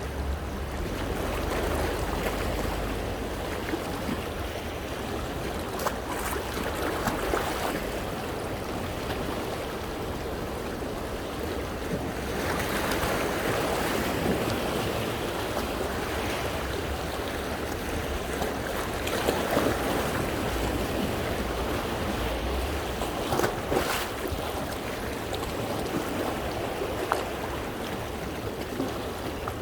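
Sea waves washing against shoreline rocks, with water splashing and swirling. The surf comes in repeated surges that swell and ebb, several of them stronger around the middle and near the end.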